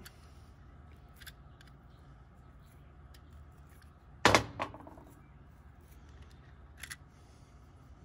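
Faint clicks and light rattles from handling a plastic-bodied 240-volt receptacle with its wires, with one loud sharp click about four seconds in.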